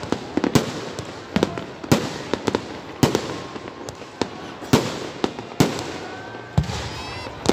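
Aerial fireworks shells bursting in a rapid, irregular string of sharp bangs over a crackling haze.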